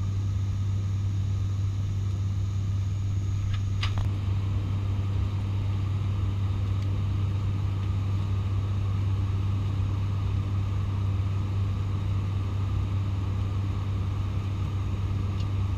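Steady cabin drone of an ATR 72-600's PW127 turboprops and six-bladed propellers in flight, heard from a passenger seat: a constant low propeller hum under even engine and air noise. A short click about four seconds in.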